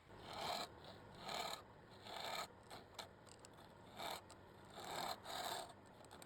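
Rasping back-and-forth strokes of an abrasive worked by hand over a surface, about seven strokes spaced unevenly, some in quick pairs.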